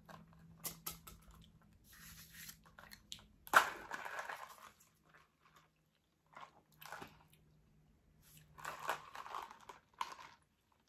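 Sipping an iced drink through a plastic straw: several short sucking and slurping sounds, with a sharp click about three and a half seconds in.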